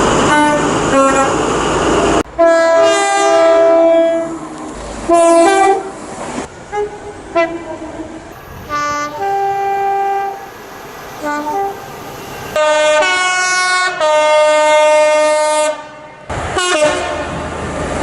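A run of British train horns, one clip after another with abrupt cuts between them. Two-tone horns sound high and low notes in turn, in a mix of quick short toots and longer held blasts.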